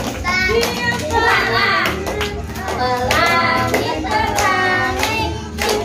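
A young boy singing a children's song while a group of children clap along.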